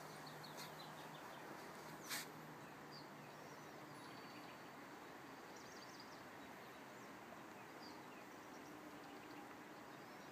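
Quiet outdoor ambience with faint, scattered bird chirps and a single sharp click about two seconds in.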